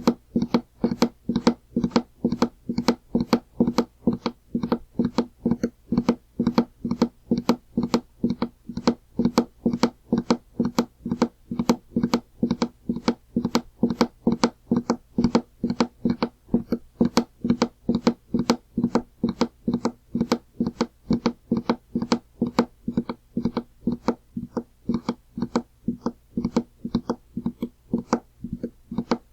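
Horse galloping sound effect: a steady run of hoofbeat knocks, about three a second, with no pause.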